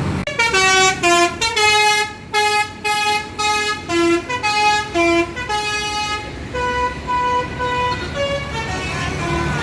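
A bus's telolet horn, a multi-tone musical air horn, playing a quick tune. Short notes jump up and down in pitch several times a second, then slow into longer, softer notes in the second half.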